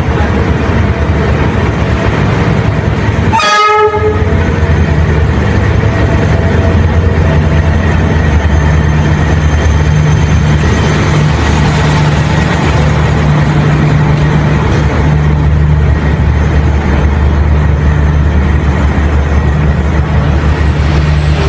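Train running with a steady low hum, and a short horn blast about three and a half seconds in.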